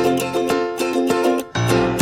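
Stock background music: a light, bouncy tune of short plucked-string notes over a held bass note, with a brief break near the end.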